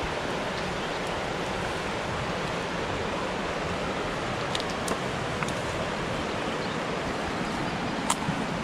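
Fast river water rushing over rocks: a steady, even wash of flowing water, with a few light clicks around the middle and one near the end.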